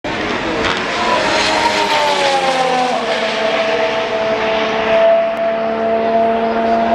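Formula 1 cars' 1.6-litre turbocharged V6 engines running at speed on the circuit. The engine note falls in pitch over the first three seconds, then holds steady.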